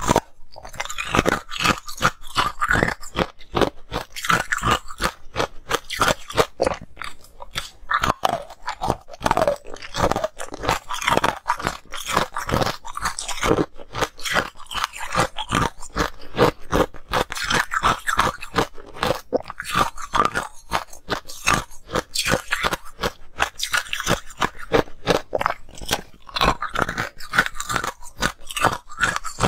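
Ice coated in green powder being bitten and chewed up close: many sharp crunches in quick succession, mixed with chewing.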